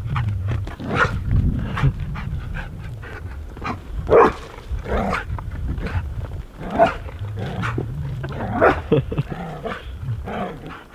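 Australian Shepherd barking in rough play, a string of short barks with the loudest about four and seven seconds in.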